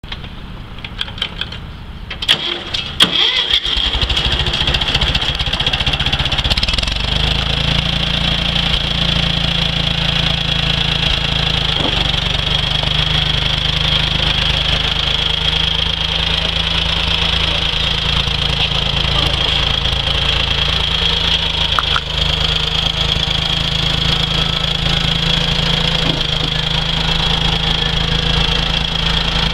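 Ford 2000 tractor's three-cylinder engine being started: a few seconds of cranking and sputtering before it catches about three seconds in, then running steadily.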